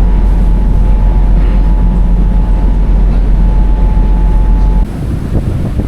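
Loud, steady low rumble of a vehicle in motion, with a faint steady whine above it. Just before the end it cuts off abruptly to gusty wind on the microphone.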